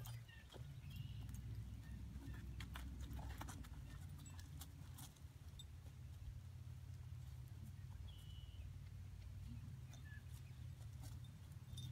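A horse walking on grass, its hooves giving scattered soft steps and clicks over a low steady rumble.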